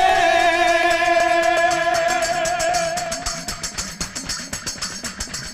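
Gujarati folk music: a long held note over the accompaniment. About three seconds in the note ends and a fast, even percussion beat carries on.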